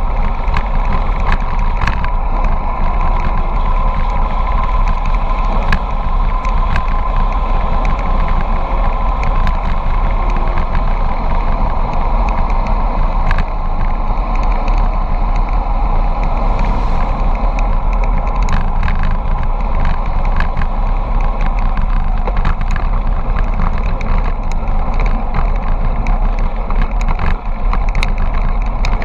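Wind rushing over the microphone of a camera on a bicycle descending a mountain road: a steady, loud rush with a deep rumble, broken by scattered small clicks.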